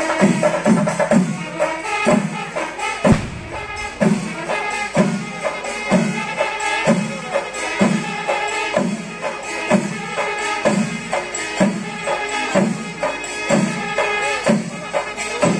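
Traditional Kerala temple percussion ensemble playing: drums beating a steady beat of about two strokes a second with clashing cymbals, and a held, wavering wind-instrument melody above.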